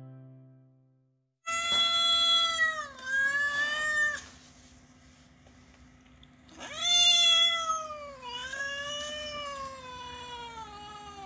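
Two long, wavering, wailing cries like a cat's yowl over a low steady hum. The first starts about a second and a half in; the second, longer one begins past the middle and slides down in pitch near the end.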